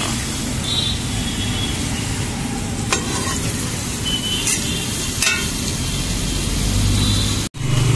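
Butter sizzling on a flat griddle under a frying gram-flour chilla, with a few short scrapes and taps of a metal spatula.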